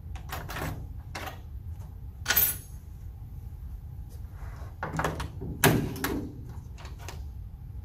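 Scattered sharp metallic clicks and knocks from removing the evaporator coil's retaining clips inside a sheet-metal air handler cabinet, two louder knocks about two and a half and six seconds in.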